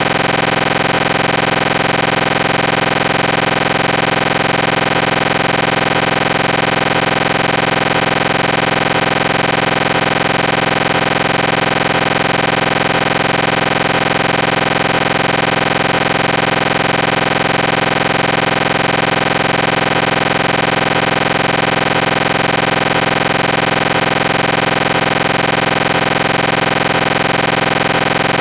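Loud, steady, unchanging drone of noise with many fixed tones in it.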